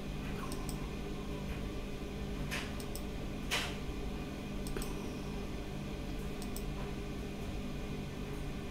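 Computer mouse clicking a few times over a steady low hum, with one louder, sharper click about three and a half seconds in.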